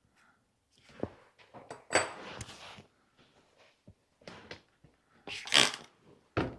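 Bicycle cantilever brake parts being handled and wiped on a workbench: scattered clicks and knocks, with a louder rustling scrape about two seconds in and another near the end.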